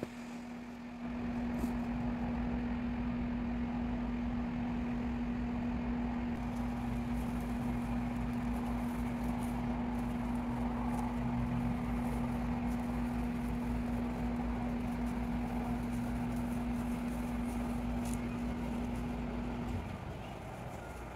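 Steady mechanical hum: one held low tone over a low rumble, both cutting off together near the end.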